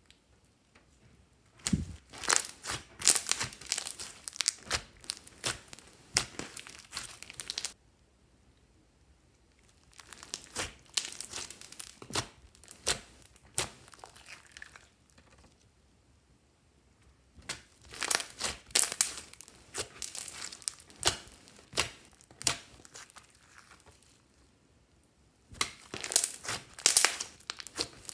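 Hands squishing, stretching and pressing fluffy slime mixed with clay and glitter: wet crackling and popping that comes in four spells, with short quiet pauses between them.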